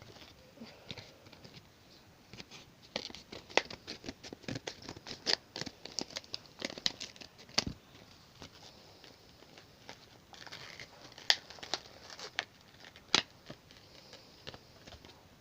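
A fidget spinner's box and plastic packaging being opened by hand: an irregular string of sharp clicks, snips and crinkles, with short spells of rustling about ten seconds in and near the end.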